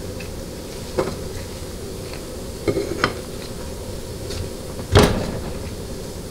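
A few short clicks and knocks of a black ring-sizing tool being handled and slid over the 200-4R center support's stator shaft to size the new Teflon sealing rings. The loudest knock comes about five seconds in.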